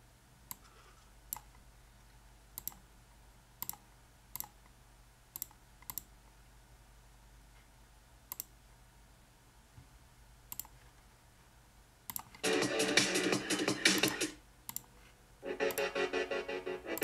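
About ten computer mouse clicks, spaced irregularly. Then electronic music with a beat plays from a Xiaomi Mi Portable Bluetooth Speaker, picked up by an iPhone 5S's built-in microphone: it starts about twelve seconds in, breaks off after two seconds, and resumes near the end.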